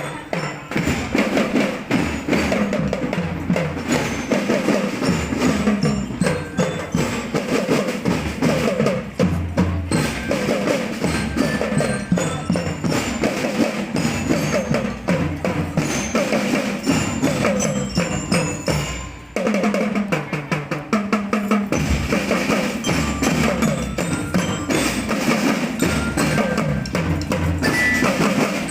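Percussion-led parade band music: drums and wooden knocks in a steady dense rhythm, with ringing bell-like notes over them. The music breaks off briefly a little past the middle and starts again.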